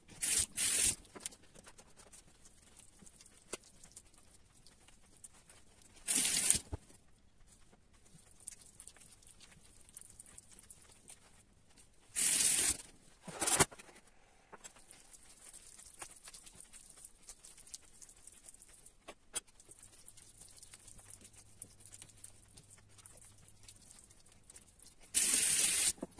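Hands kneading a wet pumpkin, egg and flour dough for gnocchi on a countertop, with about five short, loud noisy bursts spread through and quiet handling in between.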